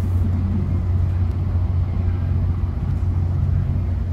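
Steady running rumble of a Caltrain bi-level passenger coach at speed, heard from inside the lower level: a constant low hum under the noise of the wheels on the rails.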